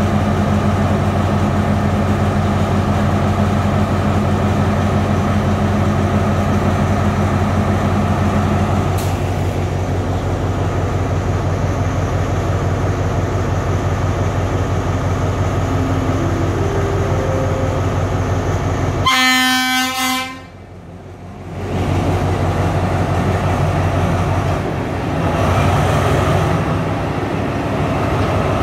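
Alstom ALS-class diesel-electric locomotive running steadily at the platform, then sounding its horn once, a loud blast of about a second and a half, before the engine drone carries on.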